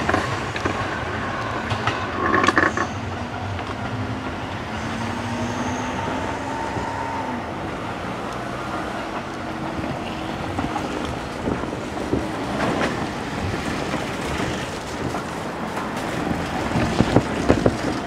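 Kintetsu 15200-series eight-car train running on away from the crossing with a steady rumble of wheels on rail. There is a short louder moment about two seconds in and a few sharp clacks near the end.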